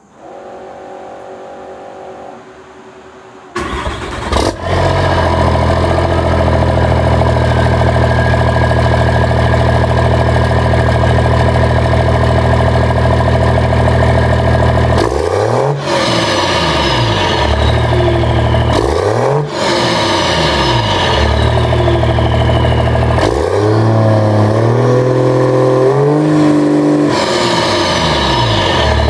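2010 Dodge Ram's 6.7L Cummins turbo-diesel heard through a 6-inch stack with a 30-inch FTE resonator. After a quieter steady tone, it cranks and fires about four seconds in and settles to a loud idle. It is then revved a few times, each rev followed by a falling turbo whistle as it drops back to idle.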